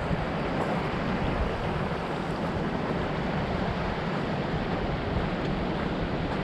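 Steady roar of rushing water at the shoreline, from the Pacific surf and a fast-running creek crossing the beach, with wind on the microphone.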